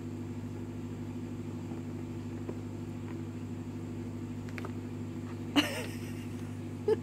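Steady low machine hum made of several pitches at once. About five and a half seconds in comes one short, sharp sound that slides down in pitch, and another brief one near the end.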